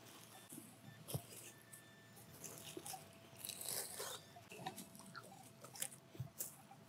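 Hand digger and gloved fingers scraping and crunching through grassy soil while a metal detecting target is dug out. There are scattered sharp clicks, and a denser crunchy scrape about three and a half seconds in.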